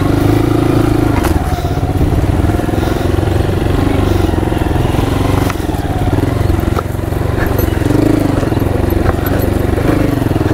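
Honda motorcycle engine running at low revs, its pitch wavering up and down as the bike is eased over a rough, rocky trail. A few short knocks come from the bike going over stones.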